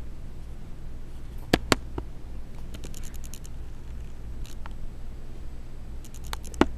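Steady low hum with a few sharp clicks, two close together about one and a half seconds in and one near the end, and short runs of light scratching or ticking.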